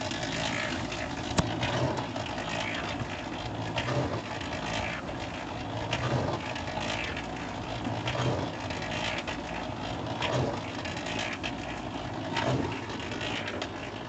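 Home-made washing machine running, its mechanism clicking and clattering in an uneven rhythm of roughly one beat a second.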